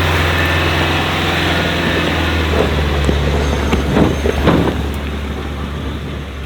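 Off-road 4x4's engine running steadily, with a few brief revs rising and falling about midway.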